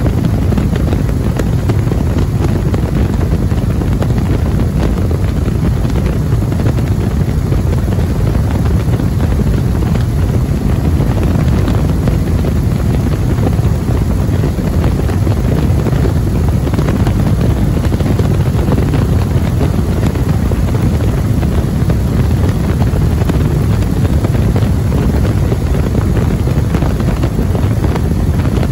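Waco UPF-7 biplane's seven-cylinder Continental W-670 radial engine running steadily in flight, heard from the open cockpit with heavy wind rush on the microphone.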